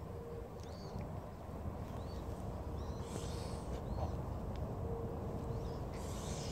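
Domestic goose hissing with its beak open, two short hisses of about half a second each, about three seconds in and near the end. A small bird chirps at intervals over a steady low rumble.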